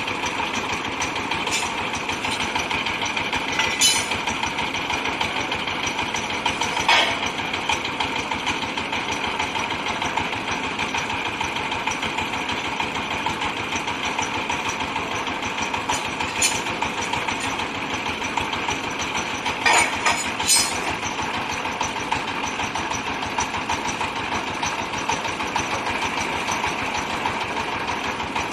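Compressed-air well-drilling rig running: a steady, dense machine noise with a few sharp knocks scattered through it.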